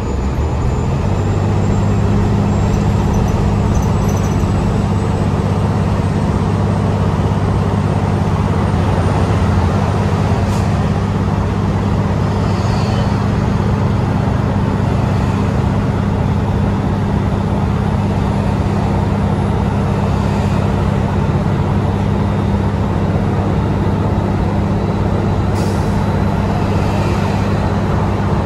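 New Flyer Xcelsior XDE60 diesel-electric hybrid bus cruising, heard from inside the cabin: its drivetrain keeps up a steady low hum over tyre and road noise. The hum firms up about a second in.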